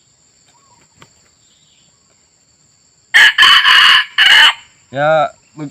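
Red junglefowl rooster crowing close by, about three seconds in: one short, loud crow broken into a few quick syllables.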